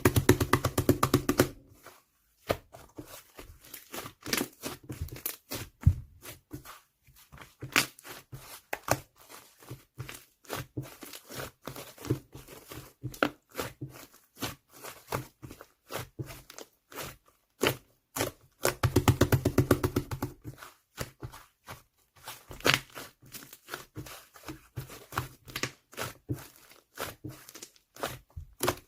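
Cloud slime being squeezed, stretched and torn by hand, making fluffy crackling, tearing and popping noises. These come in quick runs of small pops, loudest near the start and about two-thirds of the way through, with sparser crackles between.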